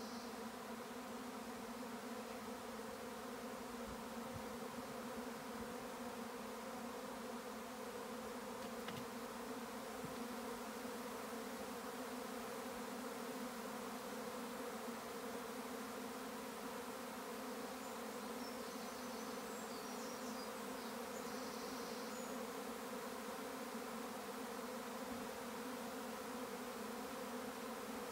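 A honeybee swarm in flight overhead: the steady, dense hum of a mass of bees in the air as the colony swarms.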